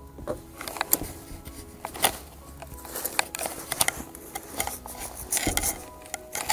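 Hand-handling noises of a battery pack being seated on an e-bike's down tube and a hook-and-loop strap being pulled through its buckle and pressed down: irregular clicks, taps and rustles, with a couple of louder rustles near the end.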